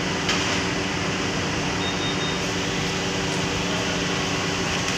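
Multi-head embroidery machines running with a steady mechanical hum, several low tones held evenly throughout.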